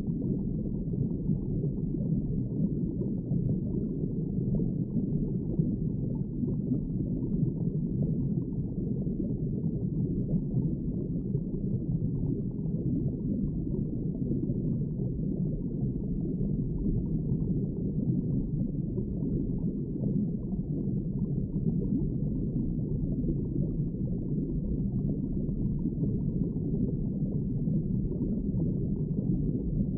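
Underwater ambience: a steady, low, muffled wash of moving water, with nothing high-pitched in it.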